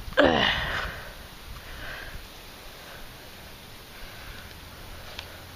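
Wind buffeting the microphone. About a quarter second in there is a short, loud sound that falls in pitch, and there is a single click near the end.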